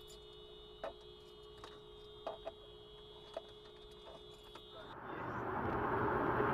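Faint dashcam audio: a thin steady whine with a few scattered sharp clicks. About five seconds in, a rushing road and engine noise from a car being driven comes in and grows louder.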